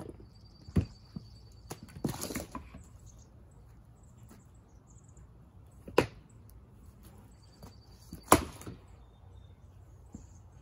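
Axe blows splitting firewood on a chopping block: sharp single chops about a second in, about six seconds in and about eight and a half seconds in, the last two the loudest, with a short run of knocks around two seconds in.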